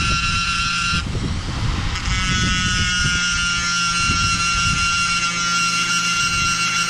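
Dremel rotary tool on a flexible shaft running at fairly slow speed, its small round cutting bit grinding shallow jigging marks into a bone knife handle. It gives a steady high whine, which gives way to a rougher grinding noise for about a second near the start.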